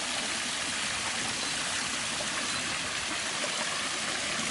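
Shallow, clear stream running over a pebble bed: a steady rush of flowing water.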